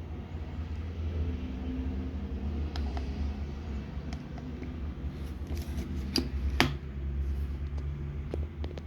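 Low steady hum with scattered light clicks, the sharpest a little past six and a half seconds in.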